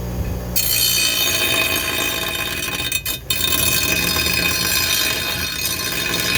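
Bench grinder running with a piece of metal pressed against its grinding wheel. The grinding noise starts about half a second in, breaks off briefly around three seconds in, then carries on over the motor's steady hum.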